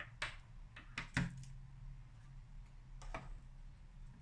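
A handful of light clicks and knocks as a USB cable and a portable hard drive are handled and set down on a wooden table, the loudest about a second in. A faint low hum runs underneath.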